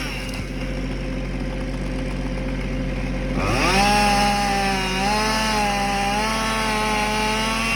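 Chainsaw engine idling, then revved up sharply about three and a half seconds in and held at high speed with a slight waver before dropping back near the end.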